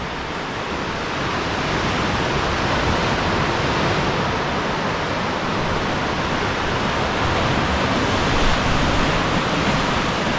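Steady, even rushing noise of surf and wind over the sea, building a little over the first two seconds, then holding.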